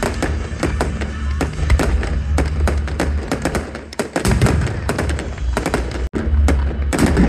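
Aerial fireworks going off: a dense run of rapid crackling pops and bangs over a low rumble. It eases briefly about four seconds in, then a heavy cluster of bursts follows.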